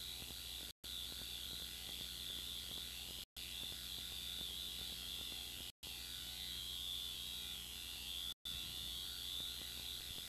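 Steady hiss and low electrical hum from videotape playback, with no test tone, cut by short dropouts to silence about every two and a half seconds, four times.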